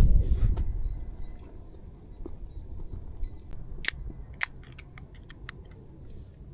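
Low rumbling handling noise that dies away in the first second or so, then a scattered run of sharp small clicks, two of them louder about four seconds in.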